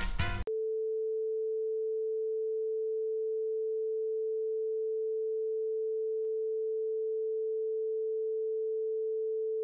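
Steady television test-pattern tone: a single unwavering pure pitch at an even level, starting abruptly about half a second in as the preceding music cuts off.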